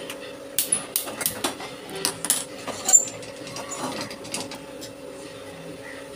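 Metal cooking vessels clinking and clattering as they are handled on a gas stove: a run of sharp clinks over the first three seconds, the loudest with a brief metallic ring, then only quieter handling over a faint steady hum.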